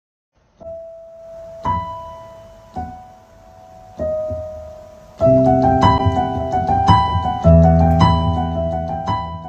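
Piano music: a few slow single notes ring out and fade, then fuller chords with low bass notes come in about five seconds in.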